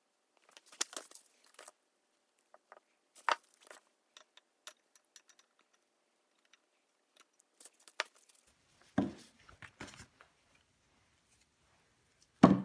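Metal parts of the Van Norman Model 12 mill's table feed gearbox clicking and clinking as part of the drive shaft is fitted into the housing by hand. Scattered light clicks, with two heavier knocks, one about nine seconds in and one at the very end.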